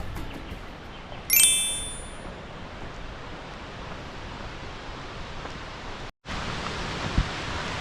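Steady rush of flowing water, with a single bell-like ding about a second in that rings out briefly. The sound cuts out for an instant a little after six seconds in, and the rush is louder after the cut.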